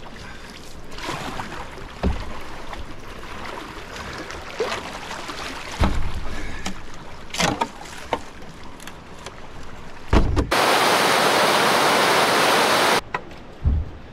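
Canoe paddling on a moving river: the paddle swishes and splashes through the water, with a few dull knocks of the paddle against rock or hull. Near the end a loud, steady rush of water sets in for a couple of seconds and cuts off abruptly.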